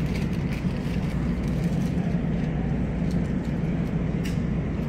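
Steady low rumble of supermarket background noise at a refrigerated meat case, with a faint click about four seconds in.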